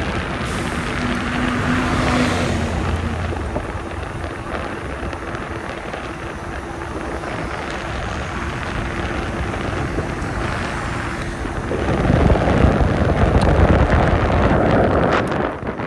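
Wind rushing over the microphone during a ride on a fat-tire e-bike, with a faint steady hum underneath. The wind buffeting grows louder about twelve seconds in and drops away just before the end.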